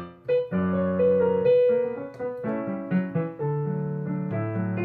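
Background piano music: a gentle keyboard melody of held notes changing every second or so.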